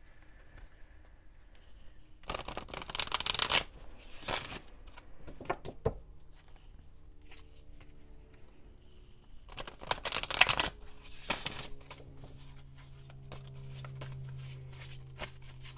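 Oracle cards being shuffled by hand: three bursts of cards riffling and sliding together, about two and a half seconds in, around four seconds, and again near ten seconds, with lighter card handling between.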